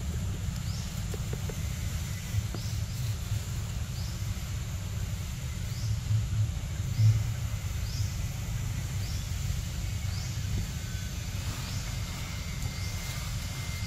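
Forest ambience: a steady low rumble, with a bird repeating a short, high, rising note about once a second. A brief low bump comes about halfway through.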